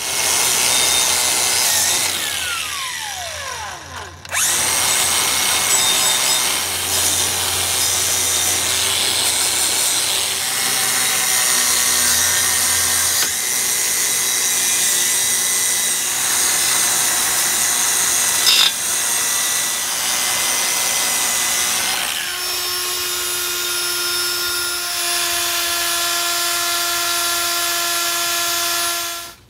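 Power drill spinning a wire brush against a rusty steering knuckle, scrubbing the rust away. About four seconds in the motor winds down with a falling pitch, then starts again. In the last several seconds it settles into a steadier whine before stopping.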